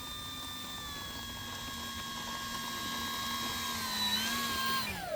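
Electric motor and propeller of an FMS Cessna 182 RC plane running steadily on the ground, a steady whine that sags slowly, lifts briefly near the end, then winds down as the throttle is cut. The run loads the flight battery so its voltage can be checked.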